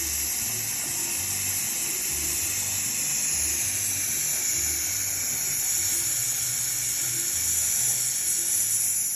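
Plasma cutter hissing steadily as its arc cuts through a steel H-beam.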